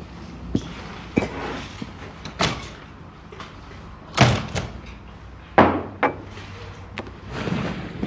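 Door thuds among lighter knocks: the loudest thud comes about four seconds in and another about a second and a half later.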